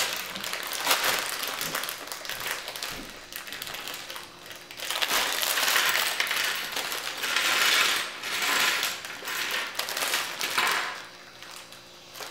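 Plastic LEGO pieces rattling and clattering as sealed polybags of parts are torn open and handled, loose bricks spilling onto a tabletop. The bag plastic crinkles in irregular stretches, most strongly about halfway through.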